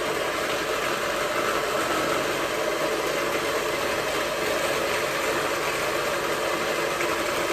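Electric whisk running steadily at one speed, whipping a coffee mixture into a mousse.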